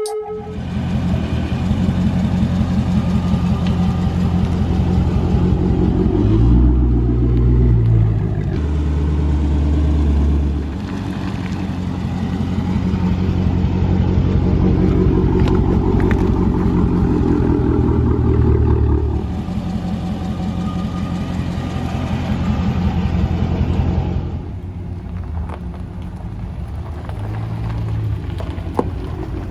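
Dodge Charger 392's V8 engine running with a low, steady exhaust note. About six seconds in the note deepens and swells for a few seconds, and it grows quieter in the last few seconds.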